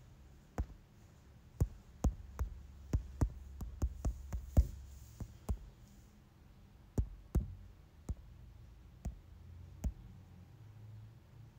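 About twenty sharp clicks and light knocks at irregular intervals, coming thickest in the first half, over a faint low hum.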